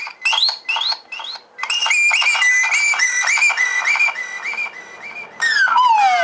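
Homemade sound-bender synth playing back a recorded whistle in a loop, chopped into short repeating whistle notes, about three a second, with echo. About five seconds in, the pitch slides downward in overlapping echoing glides as the speed knob is turned down.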